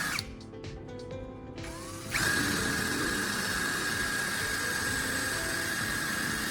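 Electric drill boring into plywood, a steady grinding noise with a high whine. It stops just after the start, leaving quieter background music, and starts again about two seconds in.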